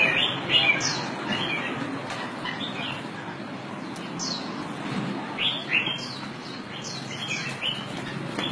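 Short, high-pitched falling chirps, often in pairs, coming irregularly every second or so over a steady low background noise.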